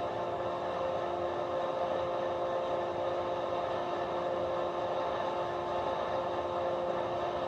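Steady train running hum with a couple of held tones from the newly installed ESU LokSound Fx sound decoder, played through the small speaker in an HO-scale Metra cab car.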